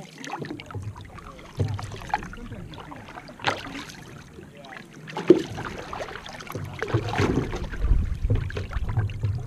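Outrigger canoe paddle strokes: a splash about every two seconds, with water washing along the hull. A low rumbling builds in the last couple of seconds.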